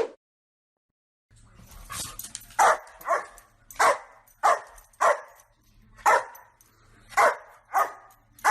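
A dog barking over and over in a steady rhythm, about one bark every half second or so, with a low hum underneath.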